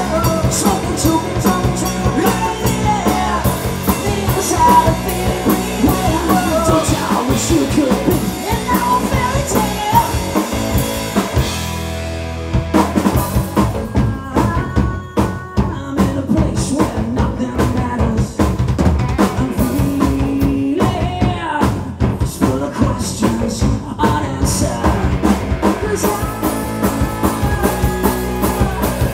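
Live rock band playing at full volume: drum kit, bass guitar and guitars. About twelve seconds in, the drums drop out briefly under a held chord, then the full band comes back in.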